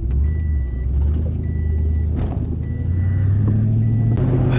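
A vehicle's engine running under way, its note climbing in steps over the last second or two as it picks up speed. A high electronic beep repeats about once a second.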